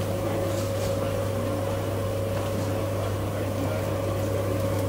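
Rotisserie oven running: a steady mechanical hum from its spit motor and gas burners, with a constant low drone and a faint steady higher tone.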